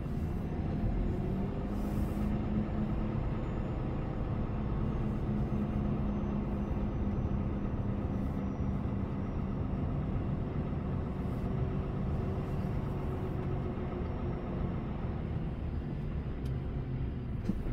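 Diesel engine of a new 480 hp truck running steadily, heard from inside the cab as an even low drone.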